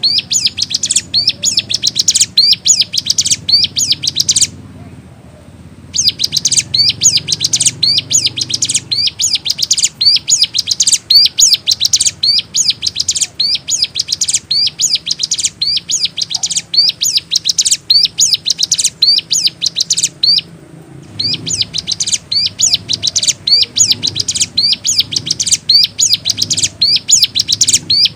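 Ciblek gunung (a mountain prinia) singing continuously in a rapid run of high, quickly repeated chirps. The song breaks off twice, briefly.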